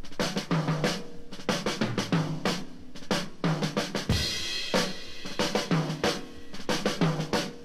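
Instrumental intro of a blues-rock recording: a drum kit plays a steady beat of snare, bass drum and cymbals over a repeating low riff, with a cymbal wash swelling about four seconds in.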